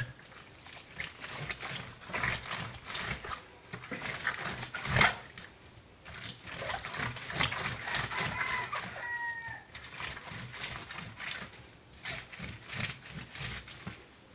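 Soaked paper being scrubbed by hand against the ridged washboard of a laundry sink, irregular wet rubbing strokes in shallow water. A brief animal call is heard faintly about nine seconds in.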